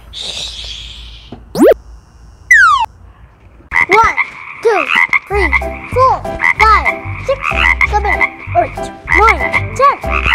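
Cartoon sound effects: a short whoosh, a quick rising whistle glide and a falling one, then a run of springy cartoon frog croaks, each a quick rise and fall in pitch. A pulsing bass beat joins about five seconds in.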